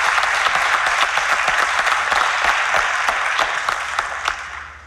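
Studio audience applauding, a dense patter of clapping that dies away over the last second or so.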